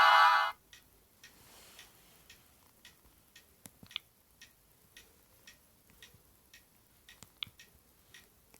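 A Sony Ericsson W595 mobile phone's melody cuts off about half a second in. It is followed by a string of faint, irregularly spaced clicks, roughly two a second, from keys being pressed on the phone.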